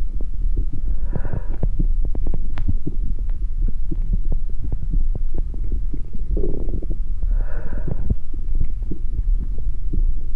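Sound-art piece built from heart sounds: a dense low rumble packed with irregular clicks under a faint steady tone, with a short hissing swell about a second in and another about six seconds later.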